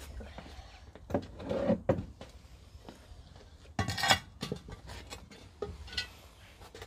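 A small hand tool scrapes and knocks on a cast-iron Dutch oven lid as ash and coals are cleared off it. A few separate scrapes, the loudest a short clatter a little before halfway, and a brief ringing knock near the end.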